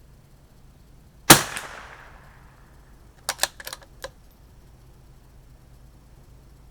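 A single shot from a CZ 457 bolt-action .22 LR rifle, a sharp crack with a short echoing tail, followed about two seconds later by a quick run of four or five metallic clicks as the bolt is worked to chamber the next round.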